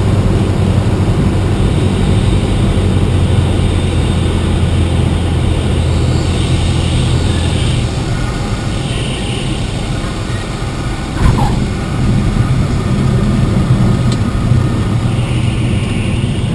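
Cessna 172 Skyhawk's piston engine and propeller, heard inside the cockpit, running steadily on final approach, then dropping to a quieter idle about halfway in as power comes off for the landing. About two-thirds in, a short thump with a brief squeal marks the wheels touching down, and the engine keeps idling through the rollout.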